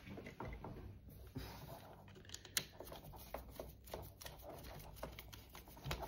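Faint, scattered clicks and rustles of hands handling a plastic wall socket faceplate and its cable cores, with one sharper click about two and a half seconds in.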